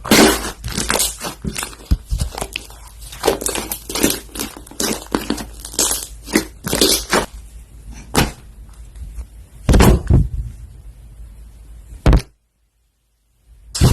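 Hands pressing, squishing and stretching slime in irregular crackling, popping bursts. The sound drops out completely for about a second and a half near the end, then starts again.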